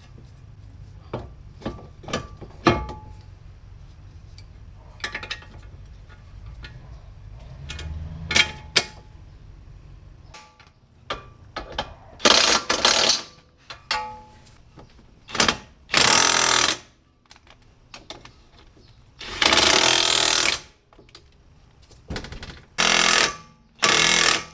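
Clinks and knocks of steel parts as the front steering knuckle and hub are fitted onto the drive axle. In the second half come several short bursts of a DeWalt cordless impact wrench hammering, the last ones on the axle nut.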